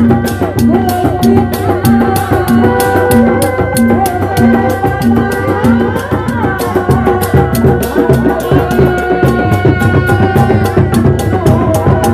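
Sundanese reak ensemble playing: dogdog drums beat a fast, steady rhythm under a sustained, wavering melody line.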